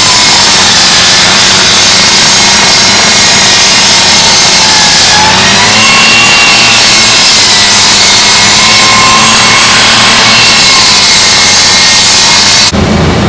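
Rotary rescue saw cutting through a car's sheet metal with a loud, steady grinding whine. Its pitch sags and recovers a couple of times as the blade bites. It stops abruptly near the end.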